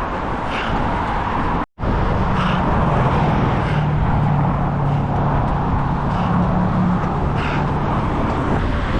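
Steady rush of road traffic, with a vehicle engine's low hum standing out from about two and a half seconds to seven seconds in. The sound cuts out completely for a split second just before two seconds in.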